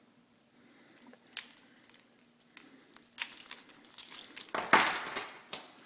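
Small metal keyring items clicking and clinking as they are handled and set down, with scattered clicks and then a busier patch of handling noise, loudest as a short rustle just under five seconds in.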